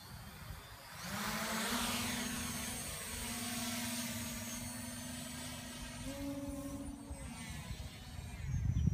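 Lumenier QAV500 quadcopter's brushless motors and propellers spinning up about a second in as it lifts off, a steady buzzing hum that steps up in pitch around six seconds and then fades as the drone climbs away. Wind rumbles on the microphone, heaviest near the end.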